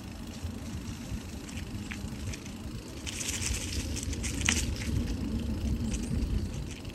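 Bicycle tyres rolling along a leaf-strewn paved trail, a steady low rumble, with dry leaves crackling and a few sharp ticks from about three to four and a half seconds in.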